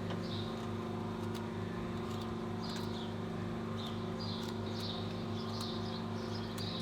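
Steady hum of a running motor, with short high bird chirps repeating every second or so and a few faint clicks.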